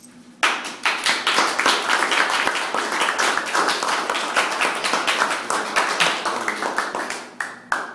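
Small audience applauding, with one person clapping loud and close. The applause starts suddenly about half a second in and dies away near the end.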